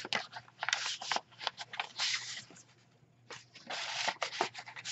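Paper rustling and flicking as the pages and tags of a handmade paper junk journal are handled and turned, with a brief lull a little before the middle.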